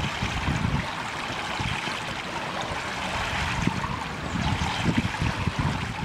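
Steady rushing and trickling of swimming-pool water, with an uneven low rumble underneath.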